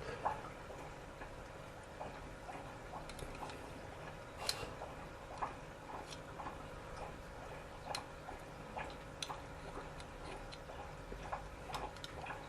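Irregular small metallic clicks and ticks from hand tools working on a lock cylinder, a few louder clacks among them, over a faint steady hum.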